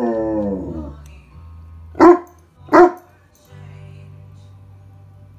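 Newfoundland dog's howl sliding down in pitch and trailing off, then two loud, short barks well under a second apart. A recorded pop song plays quietly underneath from a smart speaker.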